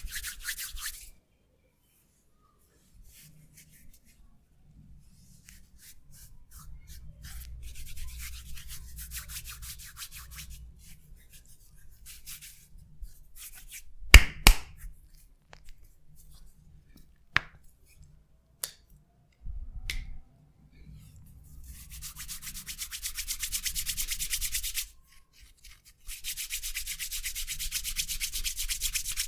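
Hands rubbing over skin in massage strokes, fast and rhythmic, coming in spells. About halfway through there is a loud sharp crack, and a couple of single clicks follow.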